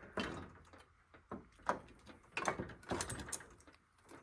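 Key turning in a fire alarm pull station's lock and the station's mechanism clicking as it is key-activated: a handful of short, separate clicks and knocks.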